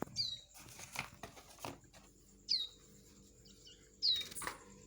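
Nestling songbirds giving three short, high chirps that slide down in pitch, with rustling and light knocks in between, as of the young birds fluttering and shifting about.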